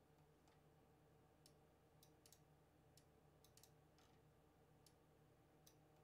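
Near silence broken by about a dozen faint computer-mouse clicks, scattered and some in quick pairs, over a faint steady hum.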